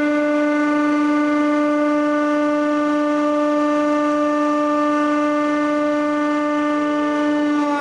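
Hydraulic press pump running with a steady, even-pitched hum as the ram lowers, still unloaded.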